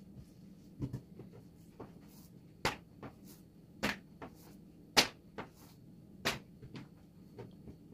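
A series of sharp knocks and lighter taps, about five prominent ones spaced a second or so apart, the loudest about five seconds in, with fainter tapping between.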